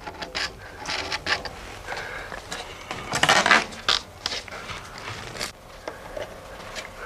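Wooden boat planking and a wooden clamp being handled and fitted by hand: a string of short knocks and clicks of wood on wood, with a longer scraping sound about three seconds in.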